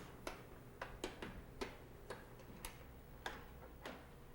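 Sharp, irregular metallic clicks, about two to three a second, from the parts of a subway turnstile being worked by hand while the mechanism is locked solid.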